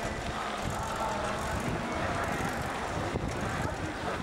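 Wind rumbling on a camcorder microphone outdoors, a steady low buffeting haze.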